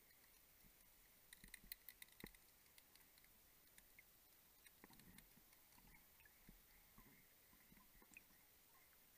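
Near silence underwater, with no exhaust bubbles because the diver breathes on a closed-circuit rebreather: only faint scattered clicks, a quick run of them between about one and two and a half seconds in, and a few soft low swishes.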